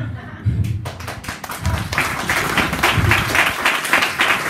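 An audience clapping: the applause starts about a second in and then keeps on steadily.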